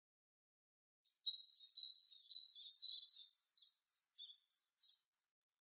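Great tit singing: a high two-note phrase, the second note lower, repeated about five times at roughly two a second, starting about a second in and trailing off into a few softer scattered notes.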